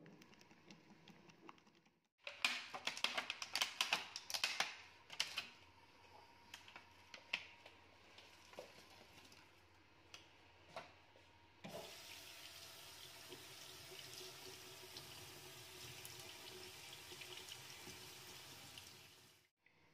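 A run of sharp clattering knocks in a stainless steel kitchen sink. About twelve seconds in, a kitchen tap is turned on, and water runs steadily over strawberries in a metal mesh sieve until it is shut off near the end.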